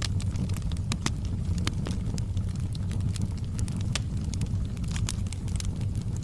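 Fire crackling: many irregular sharp pops and snaps over a steady low rumble.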